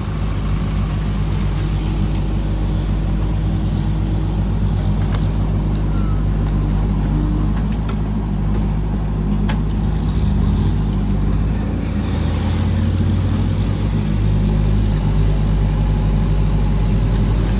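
Heavy diesel engine running steadily, with a low, even engine note that shifts briefly about two-thirds of the way through.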